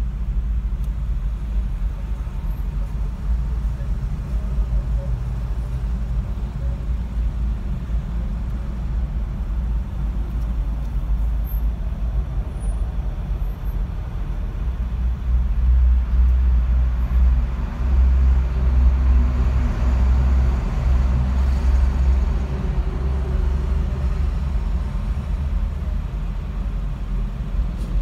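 Engine and road noise heard inside a moving car's cabin: a steady low rumble that grows louder for several seconds past the middle, then eases again.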